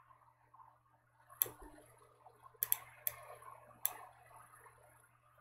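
A handful of sharp, faint clicks from a computer mouse and keyboard, about five spread across a few seconds, over a faint steady low hum.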